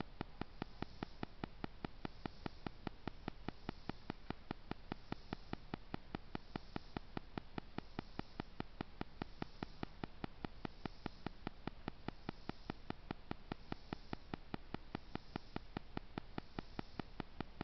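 Trail camera recording noise: a steady hiss and low hum with evenly spaced clicks, about five a second, and a faint high hiss that swells and fades a little more than once a second.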